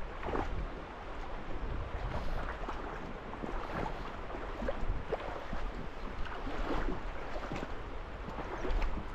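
River current running and lapping close to the microphone, with scattered small splashes.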